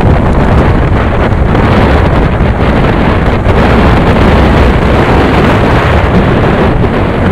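Loud, steady wind rush over the microphone of a motorcycle riding at speed, mixed with the bike's engine and road noise.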